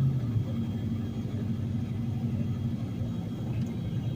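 Vehicle engine and road noise heard from inside the cab, a steady hum whose pitch drops slightly about a third of a second in, with the heater blower running.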